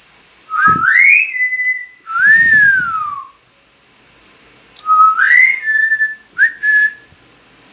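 Common hill myna whistling: four loud whistles, the first a rising note held level, the second rising and then falling away, the third rising and held, the last a short rising note held briefly.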